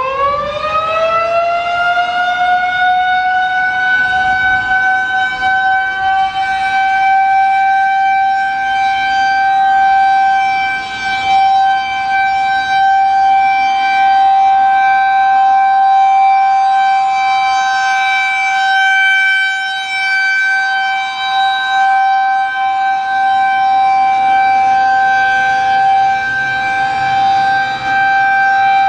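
Federal Signal 2001-130 outdoor warning siren sounding its steady full-alert signal in a test. The pitch finishes winding up in the first couple of seconds, then holds one steady tone, swelling and dipping slightly in loudness.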